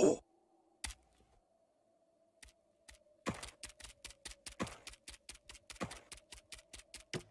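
Quick sharp tapping of steps and hooves on hard ground, several a second of uneven strength, starting about three seconds in over a faint steady hum. A brief falling cry comes at the very start, and a single click follows about a second later.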